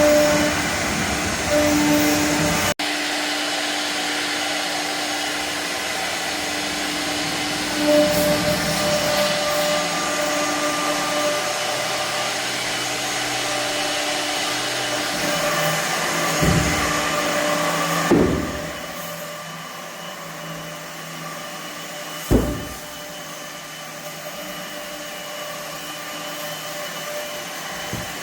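CNC router spindle running steadily as it carves wood, with a constant whine and a few short thumps. The level drops after about two-thirds of the way through.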